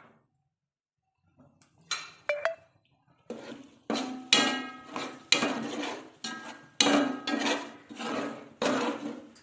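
Metal spoon stirring flour into ghee in a metal pot, scraping the pot's sides and bottom. A few light clinks come first, then repeated scraping strokes, a little under two a second, as the dry flour is worked into the fat.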